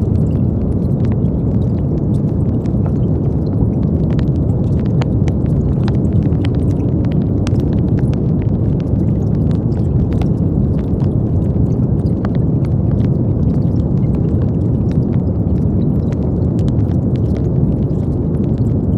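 Steady brown noise, a deep even hiss with most of its weight in the low end, with faint scattered clicks.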